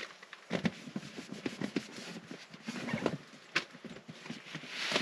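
Rustling and light, irregular knocks of gear being handled on a tent floor: a towel being pressed down and a plastic storage bin shifted against the tent wall to soak up leaked rainwater.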